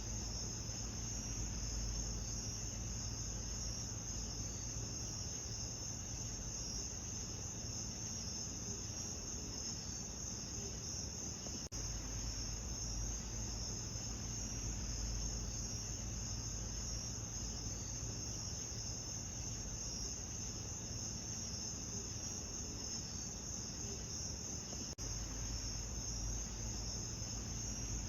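Steady night chorus of crickets, a dense high chirring that pulses continuously over a low rumble, with brief tiny dropouts about 12 and 25 seconds in.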